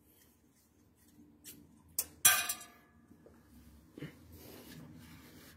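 A sharp click and then a metallic clank that rings briefly, a little over two seconds in, as metal parts are handled on the heater plate of a PVC window welding machine while its clamping bar is bolted back on. A duller knock follows about four seconds in, then faint handling noise.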